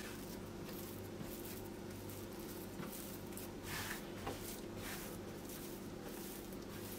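Soft, faint brushing and patting of hands rolling a tahini-spread dough sheet into a log on a wooden board, over a quiet steady hum; the rustles are a little stronger about four seconds in.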